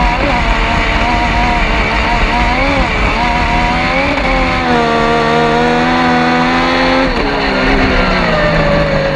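Yamaha MT-09 three-cylinder motorcycle engine of a kartcross car running hard at racing revs, its pitch rising and dipping with the throttle. About halfway through it holds a high, steady note, then falls away over the last couple of seconds as the driver lifts off.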